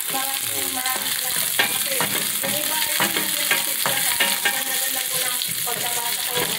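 Chopped garlic and red onion sizzling in oil in a stainless steel pan, stirred with a wooden spatula that scrapes and knocks against the pan bottom many times over the steady hiss.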